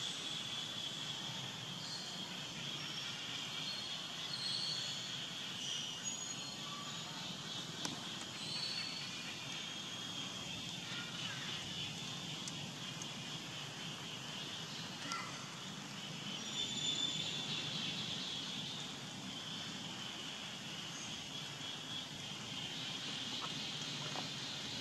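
Steady outdoor background noise: an even hiss with a high ringing band through it, and a few short, faint high chirps.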